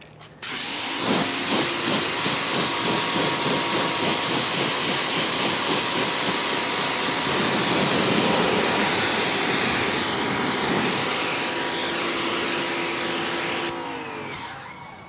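A motor-driven machine runs with a loud, steady hiss and a faint whine for about thirteen seconds, then shuts off near the end, its whine falling as it winds down.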